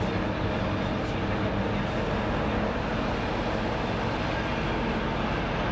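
TEP70K passenger diesel locomotive standing with its diesel engine idling: a steady, even engine noise.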